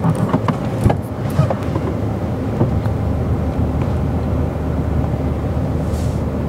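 Toyota Corolla saloon driving slowly on a dirt track: a steady low engine hum with tyre noise, and a few light knocks in the first second and a half.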